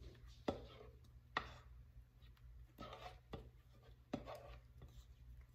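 Chocolate batter being poured and scraped out of a stainless-steel stand-mixer bowl into a silicone loaf mould: a few sharp knocks of the metal bowl, the loudest about half a second and a second and a half in, with short scraping sounds in between.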